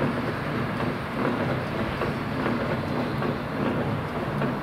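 Engine of the lifting crane running steadily, a low drone, while it holds the suspended locomotive boiler.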